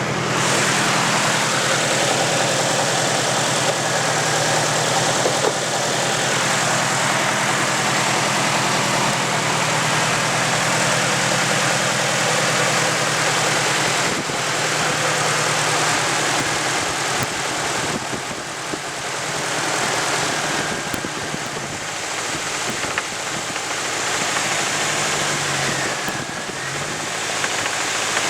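Nissan KA24DE 2.4-litre four-cylinder engine running with a rod knock from oil starvation, the bearing damage the owner diagnoses as a knocking rod. The engine speed rises and falls a few times near the end.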